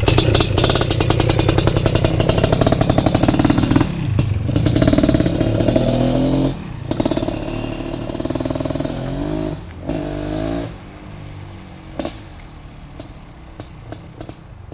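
BRC 500 motorcycle engine, newly installed in a 2015 Husqvarna TE 250 frame, running on its first startup with throttle blips that raise and drop its pitch. It stops about eleven seconds in, leaving a few faint clicks.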